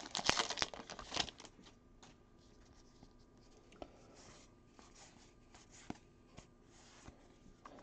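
Foil wrapper of a Topps Heritage baseball card pack crinkling and tearing open for about the first second and a half, then faint, scattered soft ticks of the cards being slid and flipped by hand.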